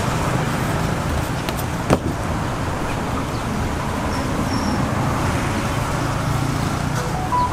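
Steady low background rumble with one sharp click about two seconds in.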